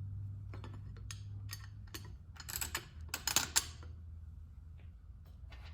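Light clicks and clinks of small metal parts and hardware being handled while a rag-joint sprocket is fitted to a bicycle hub, with a busier cluster about two and a half to four seconds in, over a steady low hum.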